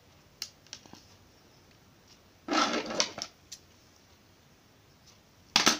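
Scissors handled on a wooden tabletop: a few light clicks, a clatter as they are picked up about two and a half seconds in, then a short sharp snip near the end as they cut the sewing thread at a satin ribbon petal.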